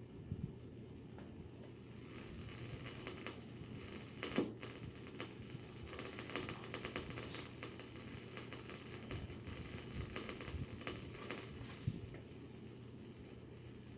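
Snow crab leg shells being cracked and pulled apart by hand: an irregular run of sharp cracks and clicks, loudest about four seconds in, over a steady low hum.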